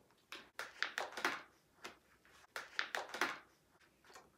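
Wrapping on an eyeshadow palette being crinkled and torn off by hand, in irregular bursts of crackling.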